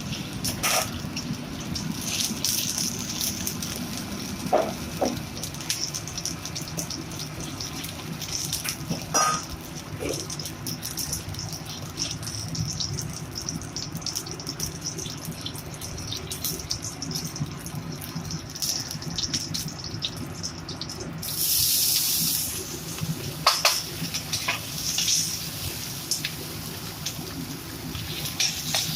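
Chicken pieces deep-frying in hot oil: a steady sizzle with many small crackles, and a louder hiss lasting about a second and a half near the end.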